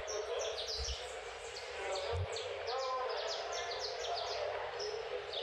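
Many small birds chirping busily: quick, short downward-sweeping chirps, overlapping and repeating throughout.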